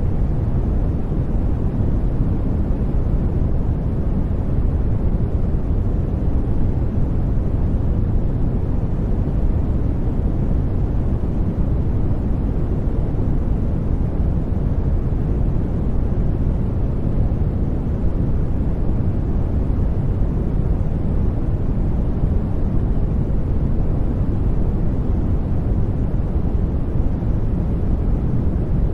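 Steady noise track for studying: an even, deep rumbling hiss, heavy in the bass and dull at the top, that never changes.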